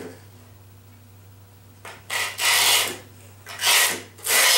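A tool scraped hard along the edge of a skateboard deck over freshly laid grip tape, scoring a white line to guide the trim cut. About two seconds in, three scraping strokes follow one another, roughly one a second.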